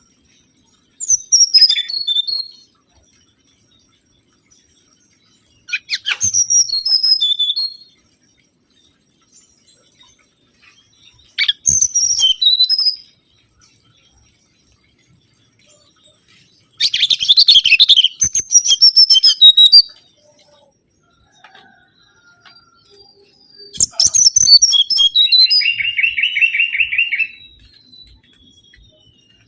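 Mangrove whistler singing: five loud phrases of clear whistled notes, each falling in pitch, spaced about five seconds apart. The last phrase, near the end, runs into a fast, lower rattling trill.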